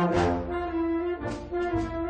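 Brass band music: held brass chords with a couple of drum or cymbal hits.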